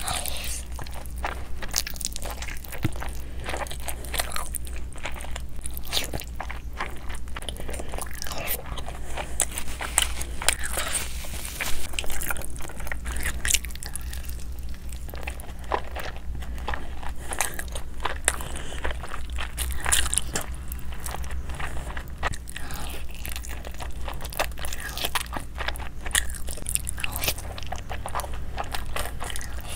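Close-miked eating: biting and crunching into crisp, consommé-soaked birria tacos, with wet chewing and smacking between bites. A steady low hum runs underneath.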